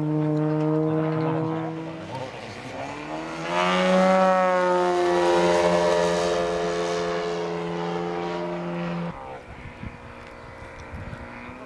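Engine of a radio-controlled model biplane in flight, running at a steady pitch, then easing off about two seconds in. It comes back louder at about four seconds as the plane makes a low pass, its pitch bending as it goes by. The engine sound cuts off abruptly a little after nine seconds.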